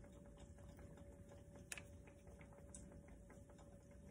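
Faint, scattered crackling of fry bread dough frying in hot oil, with one sharper click about a second and a half in.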